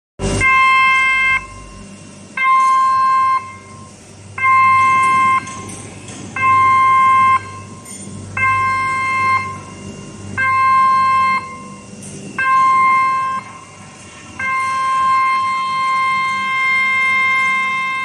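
Electronic warning beeper on a hydraulic sliding door's control system, sounding while the door runs. It gives one-second beeps every two seconds, seven times, then a longer tone of nearly four seconds near the end.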